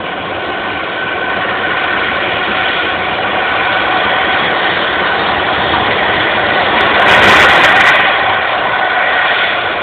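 Turbofan engines of a Boeing 767-300 freighter running with a steady whine and rumble. The sound grows louder to a peak about seven seconds in, then eases off slightly.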